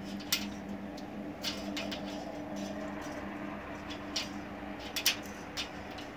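Steel pliers clicking and scraping against a brass MICC cable gland as its nut is worked tight, with a few irregular sharp clicks and two in quick succession near the end. A faint steady hum runs underneath.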